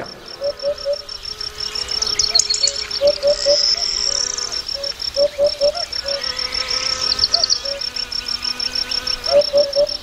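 Recorded nature soundscape of the kind played back in a museum diorama's audio dome: a cricket chirping steadily in quick pulses, birds twittering twice, and short low calls repeating in little groups of three or four.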